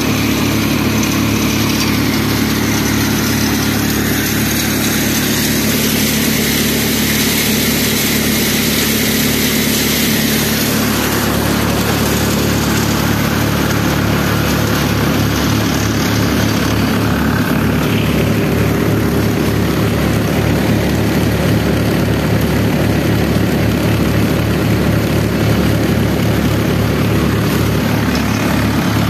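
Tractor-driven multicrop thresher running steadily, a continuous machine hum with the rush of its fans. From about eleven seconds in, the Mahindra 575 DI tractor's diesel engine comes to the fore with an even throb.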